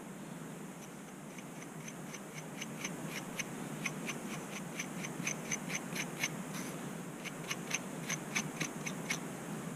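Scratching and combing at the scalp through long hair to loosen dandruff flakes: a run of short, scratchy strokes, about three a second, with a brief pause partway through.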